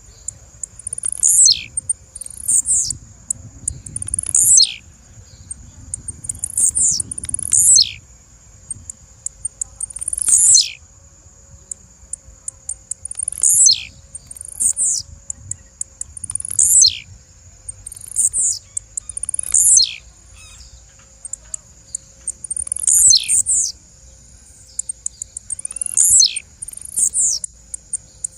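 Blue-black grassquit (tiziu) calling over and over: short, very high notes that drop sharply in pitch, about one every two seconds, with quick high ticks in between.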